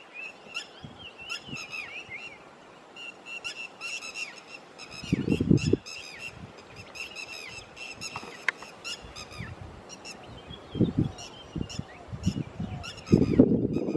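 Red-wattled lapwing giving a rapid, continuous series of short shrill alarm calls, a few notes a second. Brief low rumbles come about 5 seconds in and again near the end.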